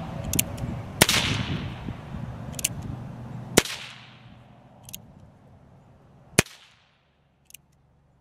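Number 11 percussion caps fired one at a time on an empty Pietta 1858 Remington Sheriff cap-and-ball revolver: three sharp cap pops about two and a half seconds apart, the last the loudest, with a fainter click of the hammer being cocked before each. This is capping off an unloaded gun to clear the nipples and check the action before loading.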